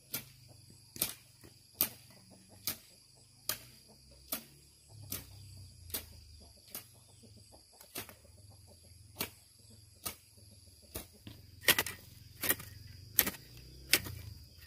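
A hand tool striking repeatedly, chopping or digging, at roughly one stroke a second, the blows growing louder near the end. Crickets keep up a steady high trill underneath.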